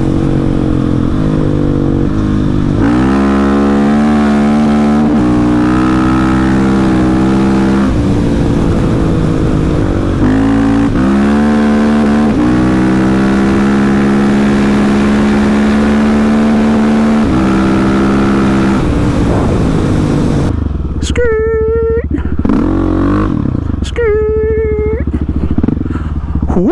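Husqvarna 701's big single-cylinder four-stroke engine running under way on a trail, its pitch climbing through the gears several times and holding steady between shifts. Near the end the engine drops back and two short high-pitched wails sound.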